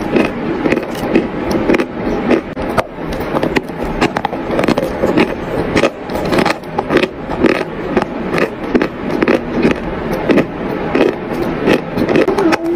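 Dry white chalk being chewed, with many gritty crunches coming at an irregular pace as it breaks up between the teeth.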